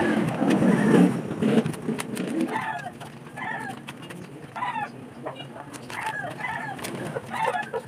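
Chickens clucking, with repeated short calls about once a second. In the first couple of seconds there is a louder low rustling, with scattered clicks throughout, from vinyl sheets being handled.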